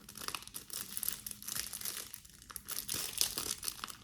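Packaging crinkling and rustling in irregular crackles as a jewelry packet is handled and opened.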